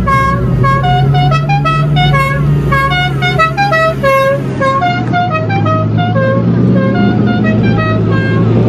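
Lamborghini Diablo V12 engines running at low speed as the cars roll past, a steady low drone that rises slightly near the end. Over it plays a continuous repeating melody of short pitched notes.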